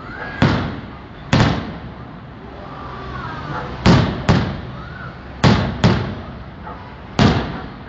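Fireworks going off: seven sharp bangs at uneven intervals, two of them in quick pairs, each followed by an echoing tail.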